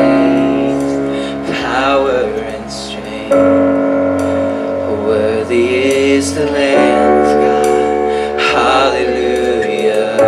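Live church praise band playing a slow song on electric guitars, bass guitar and keyboard, with a voice singing over long held chords that change every couple of seconds.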